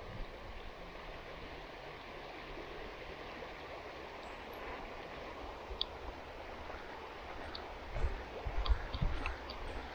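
Shallow river running over gravel: a steady rush of water. A few low bumps on the microphone come about eight to nine and a half seconds in.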